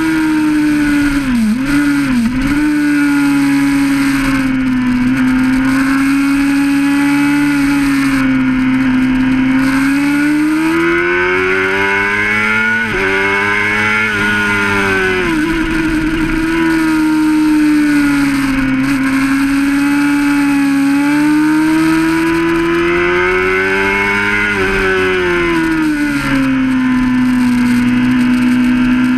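Honda CBR600RR sportbike's inline-four engine running hard at high revs, with wind rush over the onboard microphone. The pitch dips twice quickly about two seconds in, holds steady for long stretches, and twice climbs over several seconds before dropping back with quick steps at the gear changes.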